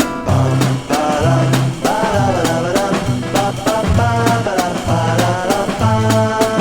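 Upbeat instrumental pop music: a bass line and drum kit keeping a steady beat under a lead melody that bends in pitch.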